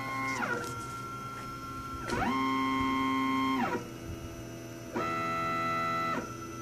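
Stepper motors of a home-built CNC router, driven by a TinyG controller, whining in pitched tones as the axes run the test-square program. Each move rises in pitch as it speeds up, holds a steady tone, then falls away as it slows, and the tone changes from one move to the next, louder on some moves than others.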